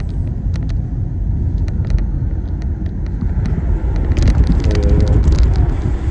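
Road noise inside a moving car: a steady low rumble of engine and tyres, with scattered light clicks and a denser patch of them about four seconds in.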